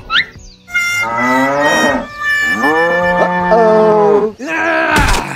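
Cow mooing twice in two long calls, the second one longer. A sharp knock comes near the end.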